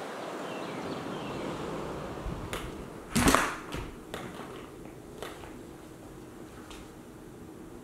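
Footsteps on a wooden floor and handling noise from a hand-held camera in a small quiet room, with one louder knock a little over three seconds in and a few fainter clicks after it.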